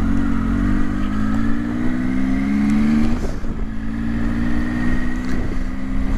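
Triumph motorcycle engine accelerating away from a stop, its pitch rising for about three seconds, dropping suddenly at an upshift, then climbing gently again.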